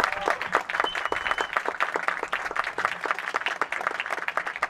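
A crowd of guests applauding, many hands clapping steadily.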